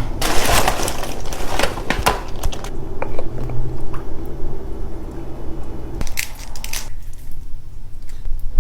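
Seafood shells being cracked and pulled apart by hand, a wet crunching and squishing. A quick flurry of sharp cracks runs through the first couple of seconds, and another cluster comes about six seconds in, over a steady low hum.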